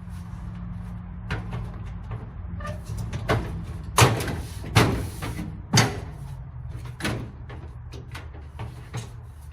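Knocks and clanks of dryer cabinet parts being handled and pushed into place, three loud ones in quick succession in the middle and lighter ones before and after, over a steady low hum.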